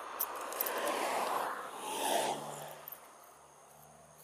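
Rough rustling and scraping from handling the fishing rod and reel and moving through grass. It runs for about two and a half seconds, swells briefly near the end, then fades.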